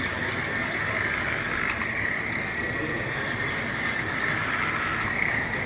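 Electric chicken döner cutting machine running with a steady high whine.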